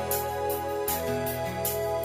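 Instrumental backing track of a Bhutanese song, without vocals: sustained chords over a moving bass line, with regular high percussion hits about twice a second.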